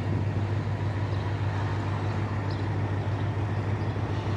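A steady low mechanical hum with a rumble above it, unchanging throughout, and a few faint ticks.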